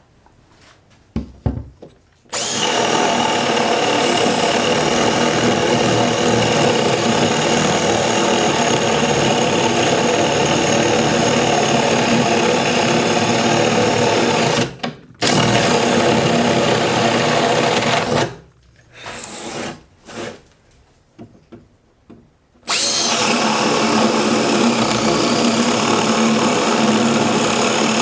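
Milwaukee 2602-20 M18 cordless hammer drill running at a steady speed, loud, in long runs. It runs for about twelve seconds, stops briefly, runs for about three more, gives a short burst, and starts again a few seconds later to run on.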